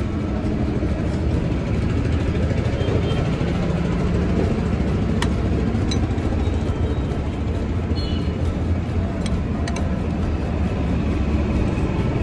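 Cafe background noise: a steady low rumble under indistinct chatter and music, with a few sharp clicks between about five and ten seconds in.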